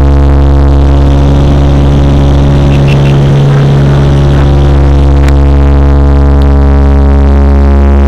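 Cabin drone of a Xi'an MA60's Pratt & Whitney Canada PW127J turboprop and propeller in flight: a loud, steady hum made of several steady tones. A brief click about five seconds in.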